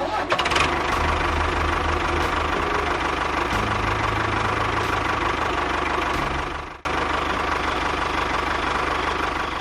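A small engine running steadily with a fast chugging pulse, breaking off for an instant about seven seconds in, then running on.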